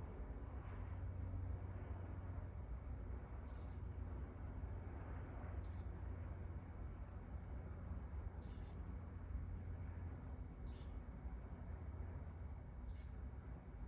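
A bird calling outdoors: a high note that falls sharply in pitch, repeated about every two and a half seconds, with short high chirps in the first few seconds. A steady low rumble runs underneath.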